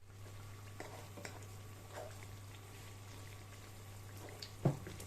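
Plantain fritters frying in oil: a faint, even sizzle with scattered small pops, over a steady low hum. A single sharper knock comes near the end.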